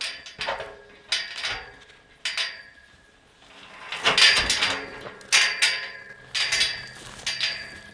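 Metal tube farm gate clanking and ringing as a hiker climbs over it: about ten knocks from boots and hands on the bars, the loudest cluster about four seconds in.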